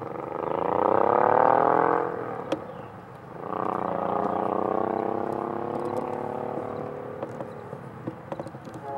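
BNSF freight locomotive air horn sounding two long blasts for a road crossing. The first blast bends upward in pitch, and the second fades out after a few seconds.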